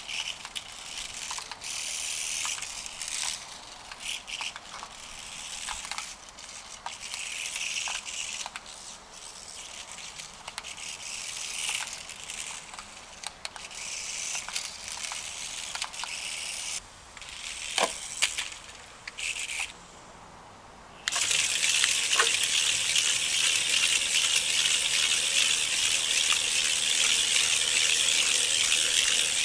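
Adventure Force Stunt Savage RC car driving over rough ground: a crunching, rattling hiss that comes and goes in surges with scattered clicks. About two-thirds of the way through it jumps to a steady, louder rush.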